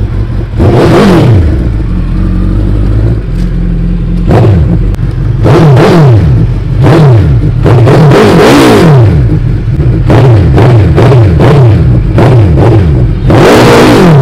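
Suzuki Hayabusa's inline-four engine revved hard at standstill through an aftermarket carbon silencer, in a series of throttle blips: the pitch rises sharply and falls back each time, with a quick run of short blips a little after halfway. Very loud.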